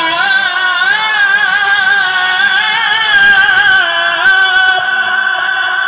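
A man singing a Punjabi naat solo into a microphone, drawing out one long wavering note with ornamented turns, without instruments.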